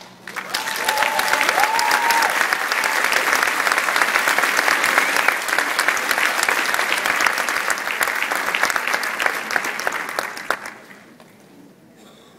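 Large audience applauding, a dense crackle of many hands clapping that dies away about eleven seconds in.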